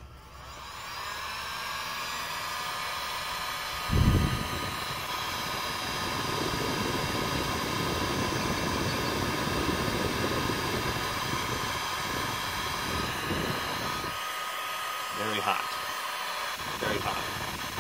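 A 1500-watt electric heat gun switched on and running at full power off a 1500-watt power inverter. Its fan motor spools up over the first second into a steady whine with a blowing hiss. About four seconds in, a loud low thump sets off a low rumble that drops away about ten seconds later.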